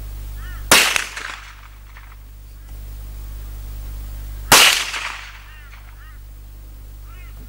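Two shots from a Lithgow .22 LR rifle, about four seconds apart, each a sharp crack followed by a short echo. Faint bird chirps come between and after the shots.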